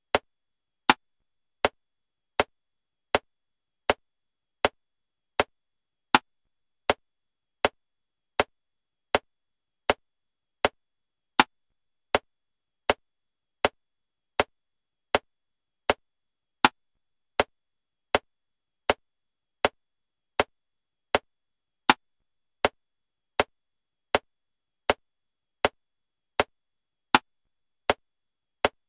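Metronome click track at 80 beats per minute in 7/4 time: a short click every three-quarters of a second, with a louder accented click on the first of every seven beats.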